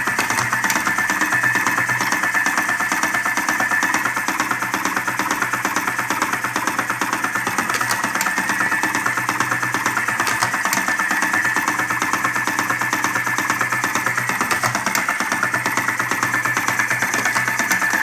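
Top-O-Matic electric cigarette-filling machine with a tobacco hopper, its small 12-volt DC motor running with a steady whir while it packs tobacco into empty tubes.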